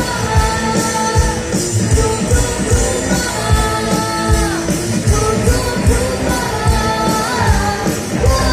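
Live rock band playing, with a drum kit keeping a steady beat under sustained guitar or keyboard notes and singing.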